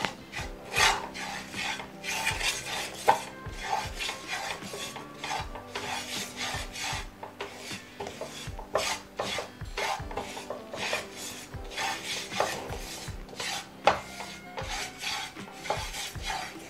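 Silicone spatula scraping dry curry powder and whole spices around a nonstick pan in repeated rasping strokes as they dry-roast, with a couple of sharper knocks of the spatula on the pan.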